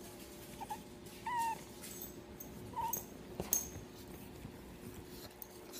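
Pug puppy whimpering: three short, high-pitched whines in the first three seconds, followed by a few sharp clicks.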